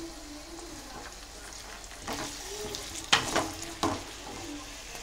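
Sliced brinjal and onions sizzling in hot oil in an old metal kadai. A wooden spatula scrapes and stirs the pieces in a few strokes about two, three and four seconds in.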